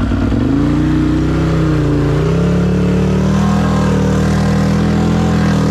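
Can-Am Outlander 800 ATV's V-twin engine revving up as it drives into a mud hole, dipping briefly about two seconds in, then holding steady at higher revs.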